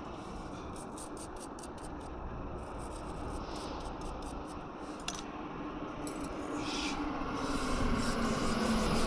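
Rubbing and scraping of hand work with tools on the motorcycle, with a few light clicks, growing louder toward the end.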